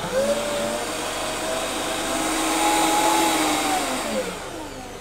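Optimum 9900 high-speed blender running with its jug half full of water to clean it. The motor whine climbs as it speeds up, holds, then falls away about four seconds in as it is turned down.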